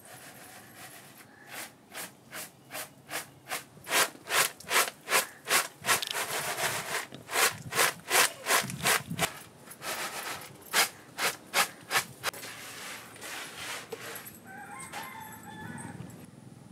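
Rhythmic hand scraping or rasping strokes, about two or three a second, for roughly ten seconds before stopping.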